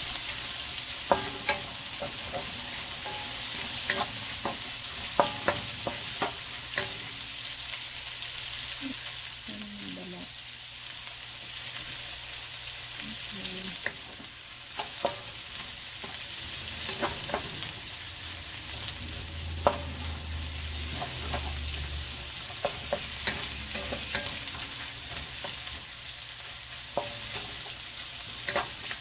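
Sliced onions sizzling in bacon fat in a metal wok, with steady frying hiss and occasional sharp clicks of a wooden spatula against the pan as they are stirred.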